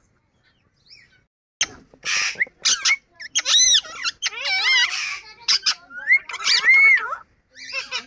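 Yellow Indian ringneck parakeet talking: a string of squeaky, high-pitched, speech-like phrases with sliding pitch and short breathy bursts, starting about one and a half seconds in.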